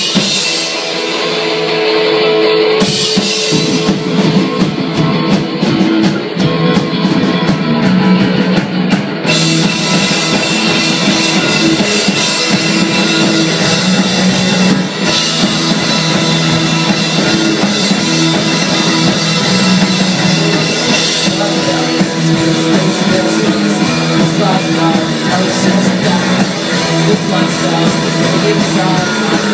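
Rock band playing live: electric guitars, bass and drum kit. A guitar opening gives way to the full band with drums about three seconds in, and the cymbals fill out a few seconds later.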